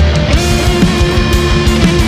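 Heavy rock music: distorted electric guitar over a steady drum beat.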